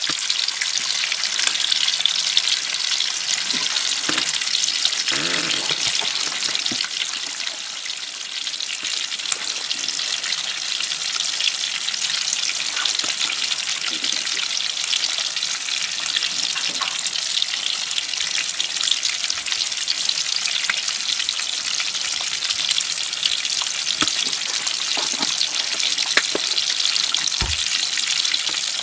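Eggs and sliced sausage frying in a pan: a steady sizzle with scattered crackles and pops.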